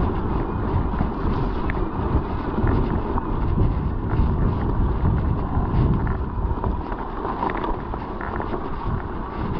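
Wind buffeting the microphone of a chest-mounted GoPro during a mountain bike ride: a loud, gusty low rumble with scattered light ticks.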